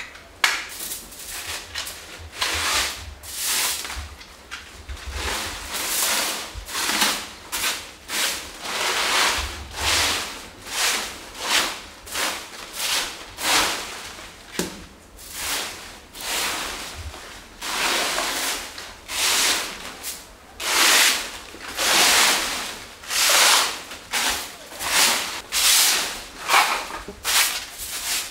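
Broom sweeping a floor in steady strokes, a scratchy rush of noise about once a second.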